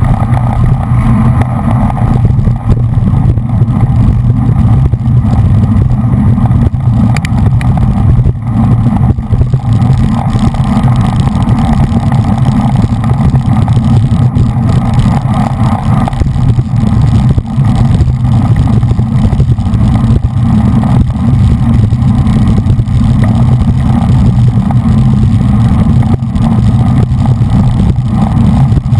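Wind buffeting a GoPro's microphone as it travels at racing speed on a bicycle: a loud, steady, deep rumble that does not let up.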